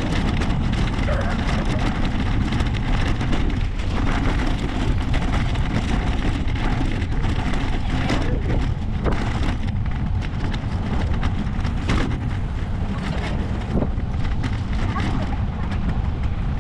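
Wind rumbling on the microphone while cycling, a steady low buffeting, with a few faint clicks or knocks in the second half.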